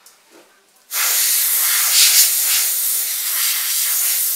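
Aerosol spray can hissing in one steady blast of about three and a half seconds, starting about a second in and cutting off sharply, sprayed at a projector's clear plastic lens to clear dust from it.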